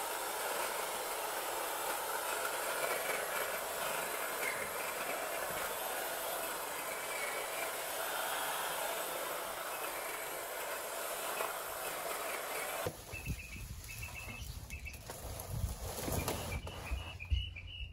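Power hedge trimmer running steadily as it cuts back overgrown vines. After a cut about 13 seconds in, it gives way to the rustle and crackle of cut vines being pressed down into a plastic trash can.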